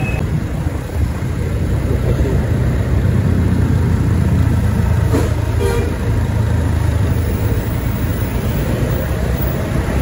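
Large coach bus's diesel engine running close by as the bus rolls slowly up, a steady low rumble, with one short horn toot about five and a half seconds in.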